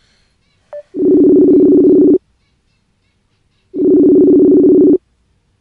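Telephone ringback tone of an outgoing call waiting to be answered: two long, steady, loud rings of two tones sounding together, each about a second and a quarter long, with a pause of about a second and a half between them.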